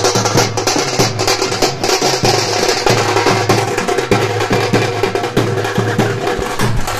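Several stick-beaten side drums played together in a fast, loud, continuous rhythm.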